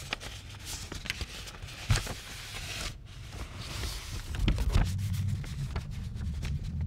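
Loose sheets of sheet music rustling and crackling as they are leafed through and lifted, with a sharp crack of paper about two seconds in. A low rumble of handling runs underneath in the second half.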